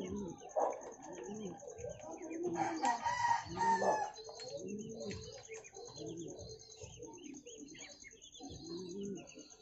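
Pigeons cooing repeatedly in low, arching calls, with a rooster crowing once about three seconds in.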